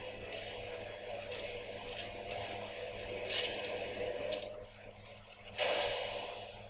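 Anime soundtrack at low volume: mechanical clicking and scraping of a signal pistol being readied, with a hissing burst a little past three seconds in. A louder burst comes about five and a half seconds in and fades within a second, as the ear-splitting noise round is fired.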